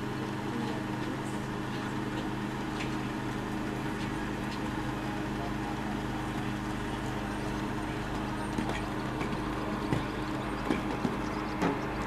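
Steady low engine hum, like a vehicle or generator idling, with faint horse hoofbeats on an arena's sand footing and a few sharper knocks near the end.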